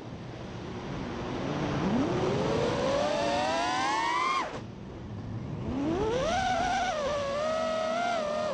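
FPV quad's T-Motor F60 Pro 2500kv brushless motors and props whining, the pitch rising as the throttle is pushed up. The whine drops off abruptly at a throttle chop about halfway through, then climbs again and holds, wavering, with wind rushing over the onboard camera.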